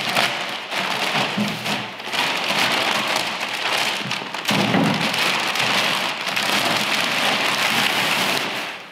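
Plastic packaging crinkling and rustling continuously as it is worked loose and pulled down off a stainless-steel gas-bottle holder.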